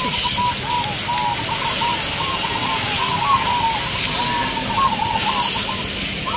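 Several caged zebra doves (perkutut) cooing together, overlapping strings of short arched coos at about the same pitch, over a steady background hiss.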